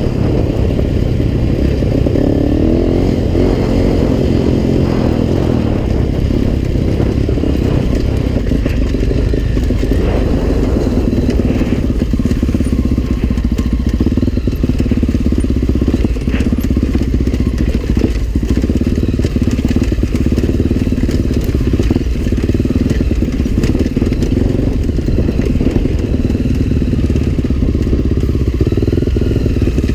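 Trail motorcycle engine running steadily under way, with scattered knocks and clatter from the bike over rough ground.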